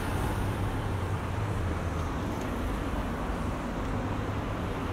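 Road traffic: a motor vehicle's engine rumble, strongest in the first two seconds and then easing, over a steady hum of street noise.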